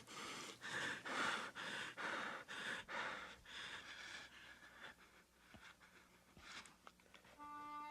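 A person breathing heavily and fast, about two breaths a second, easing off after a few seconds. Soft music tones come in near the end.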